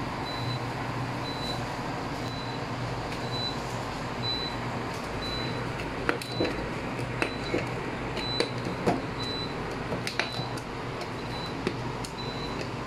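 Clear plastic dome lids clicking and crackling as they are pressed onto plastic cups, a series of sharp clicks from about six seconds in. Under them a steady machine hum runs throughout, with a faint high pip repeating about once a second.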